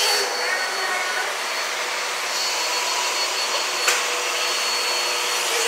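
A steady whirring motor noise from an appliance running indoors: an even hiss with a faint, constant high whine, and one brief click about two-thirds of the way through.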